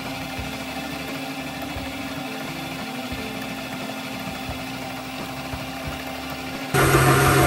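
Electric stand mixer motor running steadily as its dough hook kneads a stiff dough in a steel bowl. Near the end it turns suddenly louder and lower-pitched.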